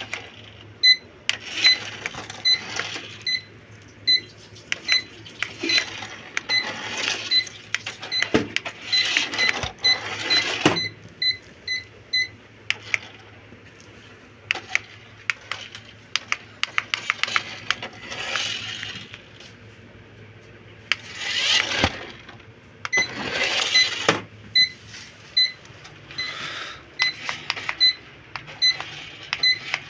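Short, high electronic beeps repeating about two to three times a second, stopping for several seconds midway and then resuming, over bursts of rustling and clattering.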